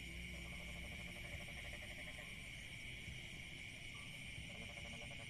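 Steady, faint chorus of night insects such as crickets, a high continuous chirring, with lower pulsing calls coming and going underneath.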